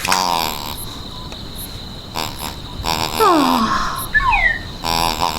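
Croaky, cartoon-style vocal noises made by a voice, with several squeals that fall in pitch in the middle.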